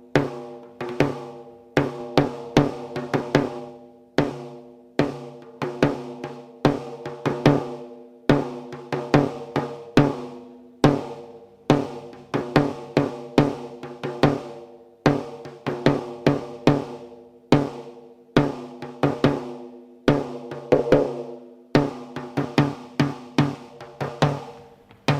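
A drum kit played in a loose, irregular pattern: clusters of sharp hits, each ringing briefly and dying away.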